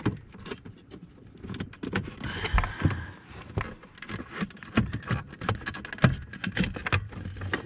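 Irregular plastic clicks, knocks and short scrapes as a car's body control module is worked off its mounting clip and pulled down out of its bracket under the dashboard.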